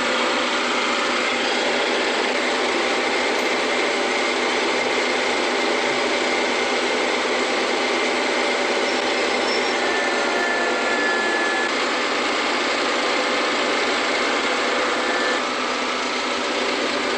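Harvesting machinery running steadily, a constant engine and mechanical clatter.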